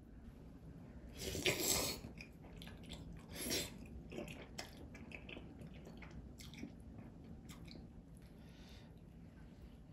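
Close-up table sounds of a takeout tteokbokki meal: two louder rustling, crunchy bursts in the first few seconds, then scattered small clicks and taps of food being handled in black plastic takeout bowls.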